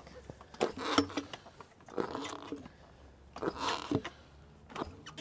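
Motorcycle tire bead being pushed off the rim by a manual tire changer's bead-breaker arm as the wheel is turned. The rubber scrapes and creaks in three short bursts, with a couple of sharp clicks near the end.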